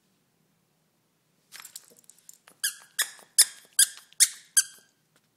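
Squeaker inside a plush stuffed carrot dog toy squeaking as a dog bites down on it: a few faint squeaks, then six loud squeaks in an even rhythm, about two or three a second.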